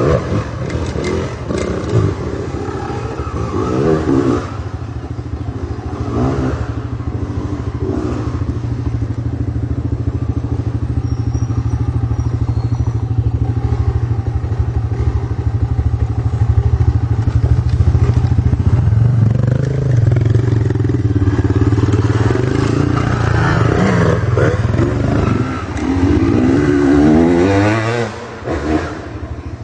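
Dirt bike engines running, steady for long stretches and revving up and down in several rising sweeps, loudest near the end.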